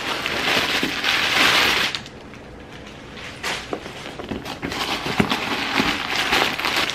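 Crumpled paper stuffing rustling and crinkling as it is pulled out of a new leather handbag. A long, loud rustle comes in the first two seconds, then scattered crackles and light handling clicks.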